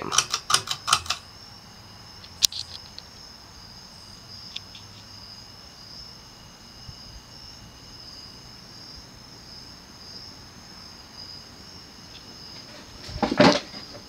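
Pull-chain speed switch of a Panasonic Lancelot ceiling fan clicking to medium, with the chain rattling for about a second. Then the fan's cast-aluminium spinner motor runs almost silently with a faint low hum, and a cluster of clicks comes near the end.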